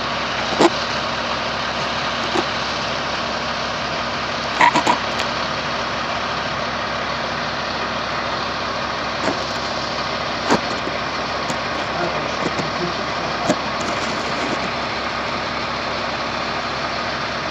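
Steady, unbroken mechanical noise that holds one level throughout, with a few short clicks and chirps over it.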